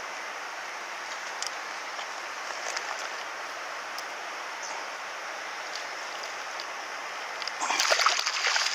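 Steady outdoor hiss of water and air with a few faint ticks. Near the end, a hooked fish splashes and thrashes at the surface beside a landing net.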